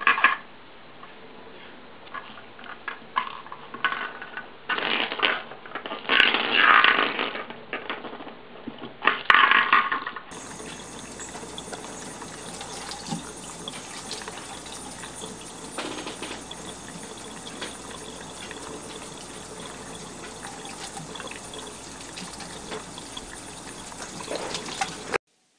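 Several short loud sounds over the first ten seconds, then a kitchen tap running steadily into a stainless-steel sink until it cuts off near the end.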